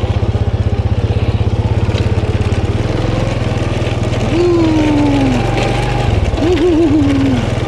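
Honda automatic scooter's single-cylinder four-stroke engine running at low speed, a steady rapid putter whose note shifts about three seconds in and again near the end.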